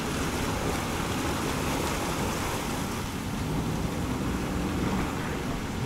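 Motorboat engine running steadily while water churns and splashes around the stern.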